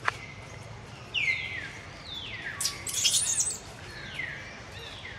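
Repeated high-pitched animal calls, each sliding down in pitch and then levelling off, about a second apart, with a harsher, noisier cry near the middle. A sharp click sounds right at the start.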